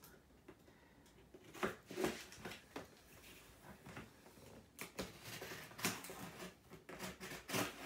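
Utility knife slitting the packing tape on a cardboard laptop box, heard as a faint, irregular series of short scrapes and clicks as the blade and box are worked.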